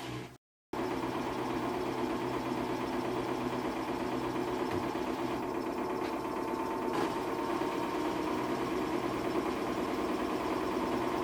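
Samsung washing machine running during its cycle: a steady mechanical whir with a faint motor tone, starting after a brief silent gap near the start.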